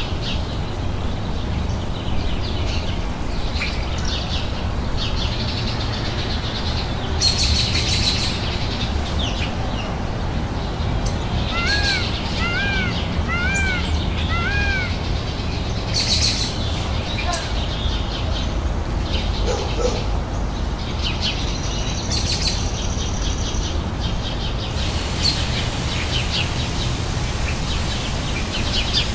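Birds calling over a steady low rumble: scattered short high chirps, and about twelve seconds in, a run of four short rising-then-falling calls about a second apart.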